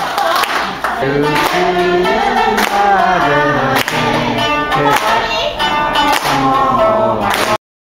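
A traditional Japanese song sung by one voice, with the audience clapping along in time. It cuts off suddenly near the end.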